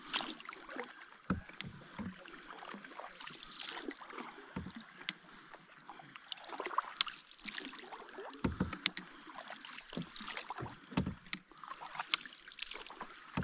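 Canoe paddles stroking through calm water: the blades dipping and splashing, with irregular light knocks and sharp clicks now and then.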